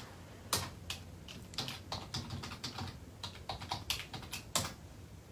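Fingers tapping on a device: a scatter of light, irregular clicks and taps.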